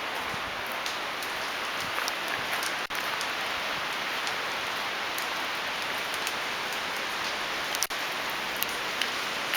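Storm wind rushing through tall Douglas fir and other trees overhead: a steady, even hiss with faint scattered ticks.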